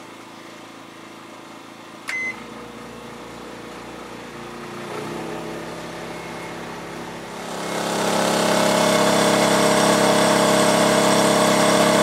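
A microwave's keypad beeps once about two seconds in as it is started, followed by the oven's faint steady hum. From about eight seconds in, a Wen 56200i inverter generator runs loud and steady, its engine revved up under the 850-watt microwave's load.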